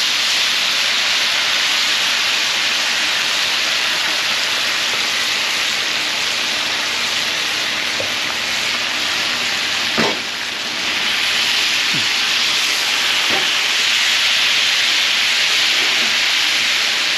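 Sliced potatoes and onions sizzling in butter on a hot flat-top griddle, a loud, steady hiss, with a sharp knock about ten seconds in.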